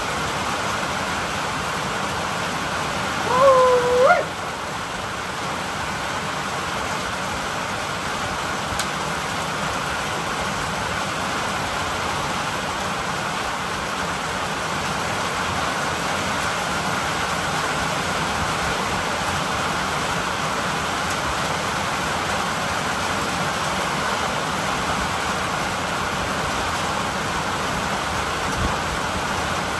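Steady rain falling, an even hiss throughout. About three and a half seconds in comes one short pitched call that dips and then rises.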